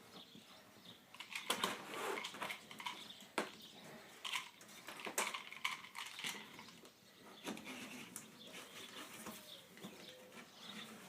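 Irregular light clicks and taps of hand work on a window screen frame while the rubber spline is pressed into its channel.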